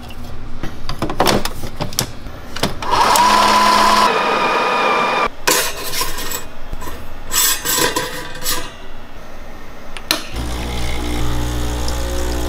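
Espresso machine being worked by hand: metal clicks and knocks of the portafilter and cup, and a loud motor whir lasting about a second, three seconds in. From about ten seconds the machine's pump hums steadily while the shot pours.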